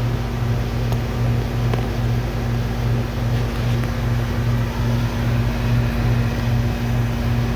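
Packaged heat pump unit running in heat mode, its compressor and fan making a steady low hum that throbs about twice a second, over a haze of fan air noise. The unit is running in reverse to thaw a frozen-up coil.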